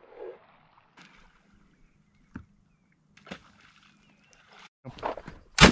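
A quiet stretch with a few faint knocks, then a single loud 12-gauge shotgun shot near the end.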